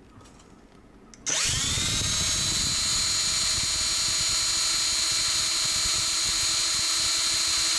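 Cordless drill switched on about a second in, spinning up quickly and then running at a steady whine as it drills a tiny numbered drill bit, shimmed in the chuck with thin wire, into a key.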